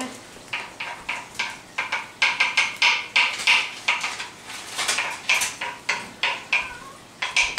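Kitchen utensils clattering: a quick, irregular string of sharp metallic clinks and knocks, about three to four a second, loudest a few seconds in.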